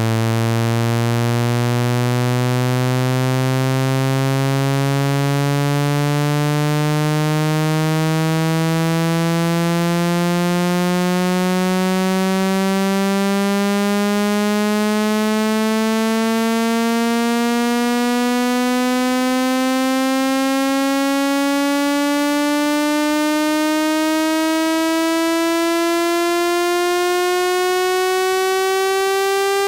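Water-eject speaker-cleaning tone: a buzzy electronic tone with many overtones, sweeping slowly and steadily upward in pitch at a constant loud level. It is played through a phone speaker so the vibration pushes trapped water out of the grille.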